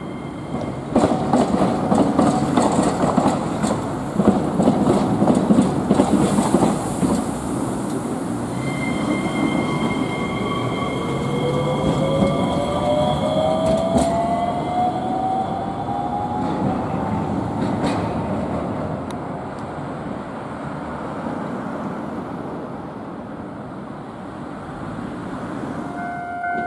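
Iyotetsu Moha 5000 tram's wheels clattering rapidly over the rail joints of a diamond crossing for several seconds. This is followed by the tram's electric motor whine, which rises steadily in pitch as it accelerates away, with a couple of single sharp clicks.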